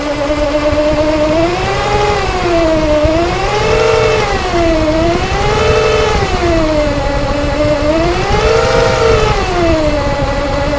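Toyota 1G-FE BEAMS straight-six engine blipped four times from idle, with a loud whine that climbs and falls in pitch with engine speed; the whine is taken to come from the oil pump.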